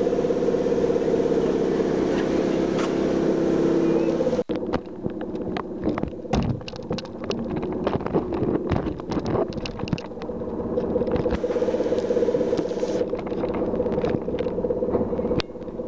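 Sóller electric tram running, heard from inside the car as a steady hum. About four and a half seconds in, a burst of knocks, scrapes and rustling starts as the camera is handled and pressed against clothing, with the tram still running underneath.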